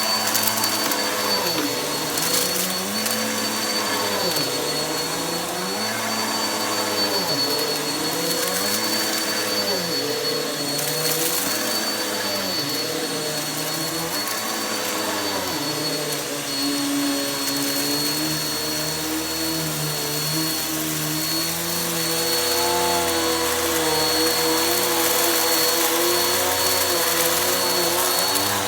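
Vacuum cleaner running steadily over carpet, its motor whine. For about the first half, its pitch dips and recovers roughly every two seconds with the back-and-forth strokes; after that it holds steadier.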